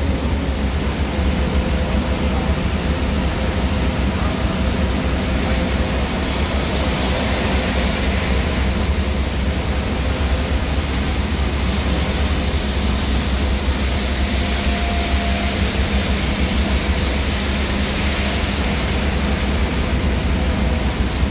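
Steady cabin noise of an intercity bus driving fast in heavy rain: a low engine and road rumble with a faint steady hum, under a continuous hiss of rain and tyre spray.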